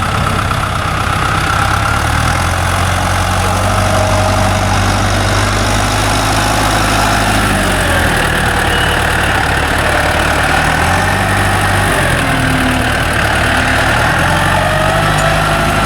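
Tractor engine running steadily, its pitch dropping and coming back up a few times.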